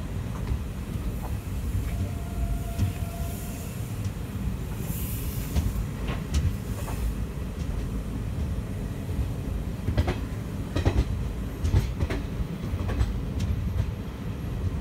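Train rolling on rails: a steady low rumble. A faint brief wheel squeal comes about two seconds in. A run of sharp clicks from wheels passing over rail joints comes in the last third.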